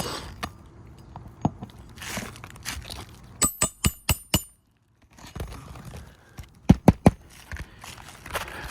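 Hammer striking a steel roofing snake to drive a nail under a lifted asphalt shingle: a quick run of five ringing metallic taps about three and a half seconds in, then three more near seven seconds.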